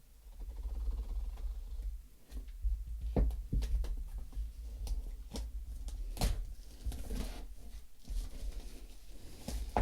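Cardboard and plastic packaging being handled and worked open by hand: irregular clicks, scrapes and rustles with low handling bumps.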